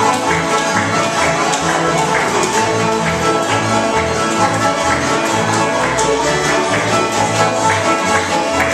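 Acoustic string band playing a tune together: fiddle lead over a steady strummed rhythm of several acoustic guitars, with a mandolin.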